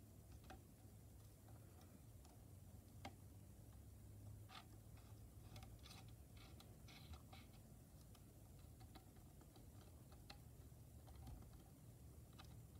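Near silence with faint, scattered small clicks and taps, a few more of them in the middle, from fingers handling small parts at the needle of a sewing machine that is not running.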